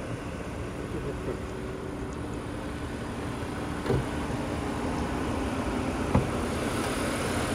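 Two short knocks, about four seconds in and again about two seconds later, from hands working the front hood latch of an Audi Q5, over a steady low outdoor hum.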